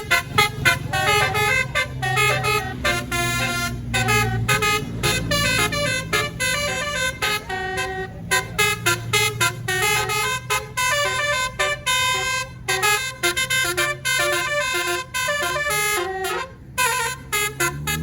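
A tour bus's basuri (telolet) multi-tone air horn playing a quick melody of short notes, over the low hum of the bus's engine.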